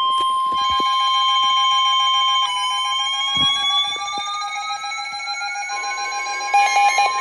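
Weather radio receivers sounding the long, steady warning alarm tone that comes before a tornado warning broadcast, with several tones overlapping. About two and a half seconds in, one tone begins sliding slowly upward in pitch while the others hold steady, and a short burst of rapid chirps sounds near the end.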